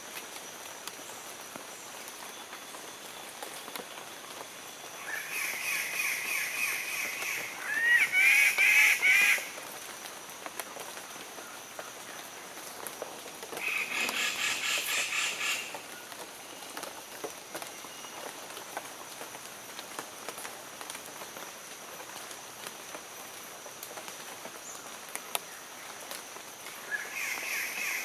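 Standardwing birds of paradise screeching loudly: the display calls of males at their lek. There are three bouts, one about five seconds in that lasts about four seconds and is loudest near its end, one around fourteen seconds in, and a third starting near the end.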